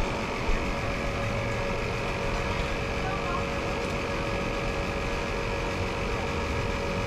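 A steady mechanical hum with a constant whine, with a small click about half a second in.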